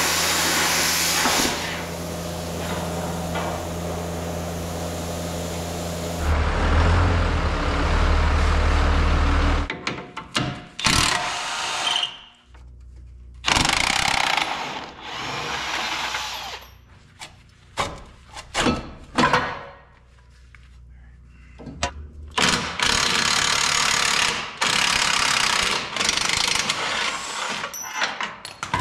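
A Milwaukee metal-cutting circular saw cutting through steel tube, throwing sparks, for about ten seconds, its tone changing partway through. Then a cordless impact driver runs in short bursts with pauses as it backs half-inch bolts out of the truck's frame, with a longer steady run near the end.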